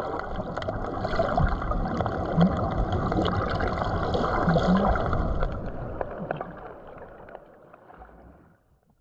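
Muffled water sloshing and bubbling, heard from underwater, with scattered sharp clicks. It fades out over the last few seconds.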